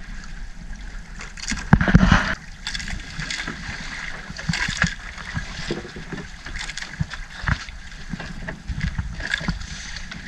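Gillnet being hauled by hand over the side of a wooden outrigger boat: wet net sliding and rustling in, water splashing and dripping, and irregular knocks against the hull. The loudest burst comes about two seconds in.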